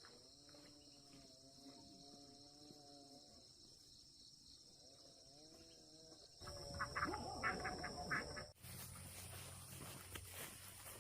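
Insects chirring steadily. A long, wavering pitched animal call runs for about three seconds, then comes again more briefly. About six seconds in it gives way to louder rustling and cracking of corn plants.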